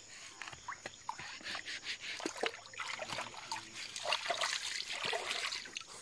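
Shallow water splashing and trickling in many small, irregular splashes, louder in the second half.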